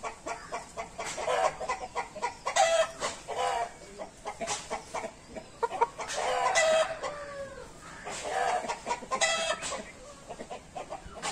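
Chickens clucking in short, repeated calls, with one longer call about six and a half seconds in that falls in pitch.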